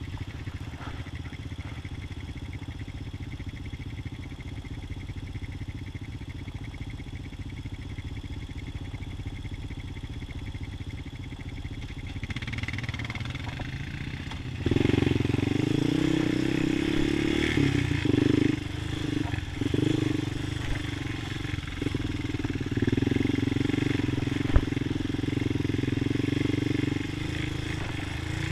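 Honda TRX250EX quad's single-cylinder four-stroke engine idling steadily, then revving up about halfway through and running under throttle as the quad moves off, the revs rising and falling. A single sharp knock near the end.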